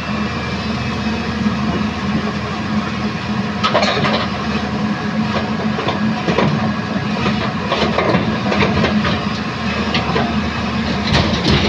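Excavator's diesel engine running steadily, with irregular clanks and scrapes of the bucket working broken old concrete, the loudest about a third of the way in and just before the end.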